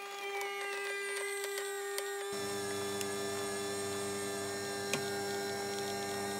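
Tchibo fully automatic electric pasta maker's motor running with a steady hum as it kneads dough and extrudes noodles. A deeper hum sets in suddenly about two seconds in, with a few light clicks.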